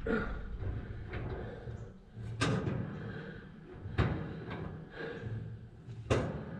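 Sharp knocks and clunks from work on a no-till grain drill's steel frame and mounting bracket: four louder strikes about a second and a half to two seconds apart, with lighter knocks between them.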